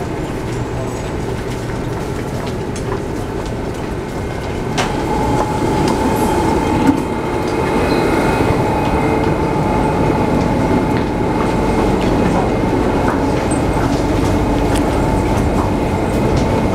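Alstom Metropolis C830C driverless metro train standing at the platform with its doors open: a steady running hum from the train. It grows louder about five seconds in, with a steady high tone, as the car is boarded.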